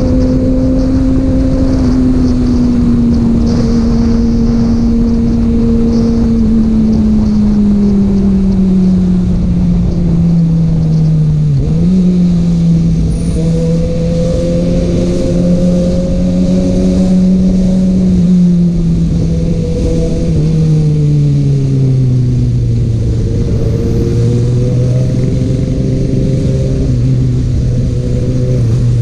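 Kawasaki Ninja ZX-6R inline-four sport bike running through an Akrapovic exhaust under way, its engine note slowly falling, with a brief dip about twelve seconds in and a further step down around twenty seconds in. A steady rush of noise runs under the engine.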